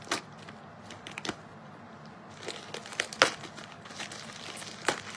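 A cardboard subscription box being opened and its paper packing handled: scattered crinkles, rustles and small taps, with a sharper knock about three seconds in and another near the end.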